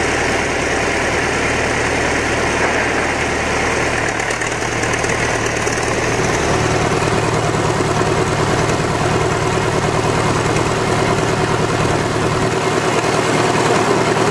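Outboard motor engine running steadily, its note shifting around five to six seconds in.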